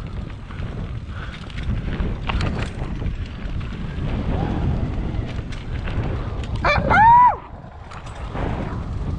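Wind buffeting the microphone and a low rumble of tyres over dirt during a mountain bike descent, with scattered rattles and clicks. About seven seconds in comes a short, loud high-pitched sound whose pitch rises and then falls.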